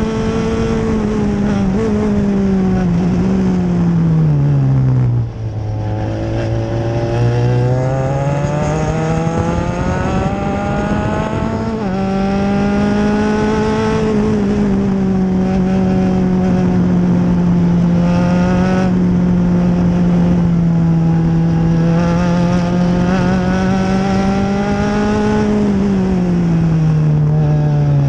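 Open-wheel formula race car's engine, heard from an onboard camera at racing speed. The engine note drops sharply about five seconds in, climbs steadily again, then holds high for a long stretch before falling once more near the end.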